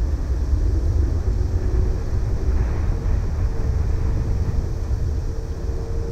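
Twin-engine widebody jet airliner on final approach, gear down: a low, steady rumble of its engines with a faint whine that rises slightly in pitch, mixed with wind buffeting the microphone.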